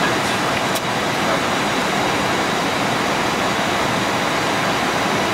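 Steady rushing noise on the Airbus A321 flight deck on approach: airflow over the nose and cockpit air conditioning. A single faint click about a second in.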